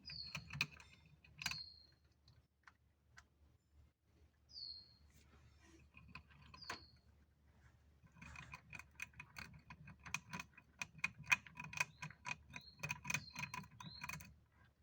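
Hamster chewing food: quick dry crunching clicks, scattered at first and coming fast and steady from about halfway through. A few short, high falling chirps come in between.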